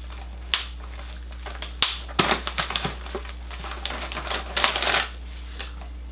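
Irregular crinkling and clicking of plastic being handled, with clusters of quick crackles through the middle.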